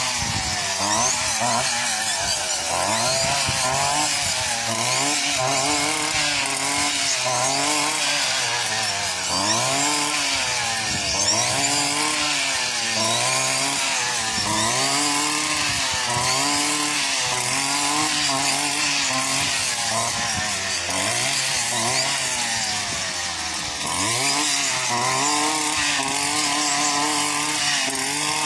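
Petrol brush cutter (string trimmer) running as it cuts through tall grass and weeds. Its engine note rises and falls over and over, about once every second or two.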